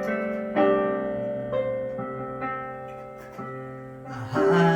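Piano-sound keyboard playing slow, sustained chords, struck roughly once a second and left to ring and fade, growing fuller near the end. It is the gentle introduction to a worship song.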